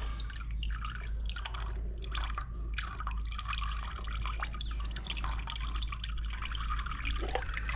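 Used engine oil dripping and trickling from a motorcycle engine into a drain pan, in many small, irregular drips.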